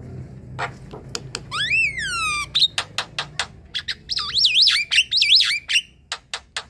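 Javan myna in full song, a varied chatter: sharp clicking notes, a loud whistle that rises and falls about two seconds in, then a fast wavering warble between about four and six seconds, with more clicks near the end.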